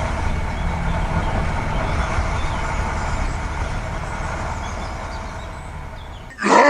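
Truck engine running steadily, slowly fading out, then cut off about six seconds in by a sudden, much louder sound.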